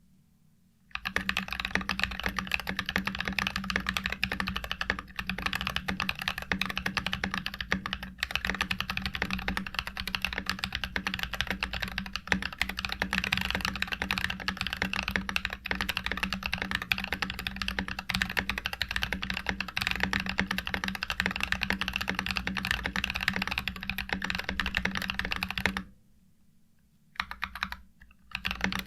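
Fast continuous typing on an NK65 Entry polycarbonate mechanical keyboard with lubed Glorious Panda tactile switches and MT3 doubleshot ABS keycaps, a dense run of deep keystrokes with a 'thock'. The typing stops about 25 seconds in, with a short burst before it resumes near the end.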